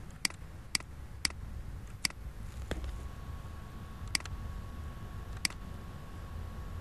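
Computer mouse buttons clicking, about seven separate sharp clicks at irregular intervals, one of them a quick double click, over a low steady hum.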